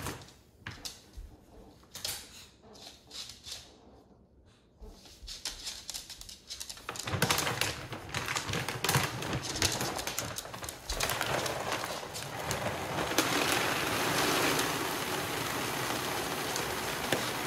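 Dry dog kibble pouring from a large bag into a plastic storage bin: a steady rattling rush of pellets that sets in about 13 seconds in. Before it comes crackling and rustling as the bag is handled, and the first several seconds are quiet with only scattered clicks.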